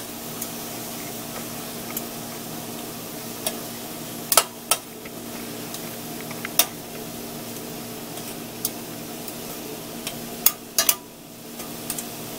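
Shrimp sizzling in butter in a stainless steel pan, with metal kitchen tongs clicking sharply against the pan about ten times as the shrimp are turned.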